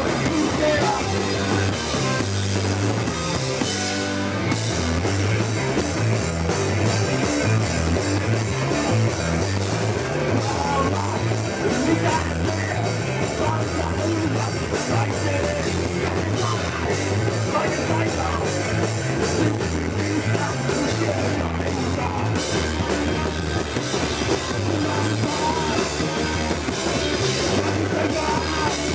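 Hardcore punk band playing live: distorted electric guitar, bass and drum kit driving on without a break, with vocals over them.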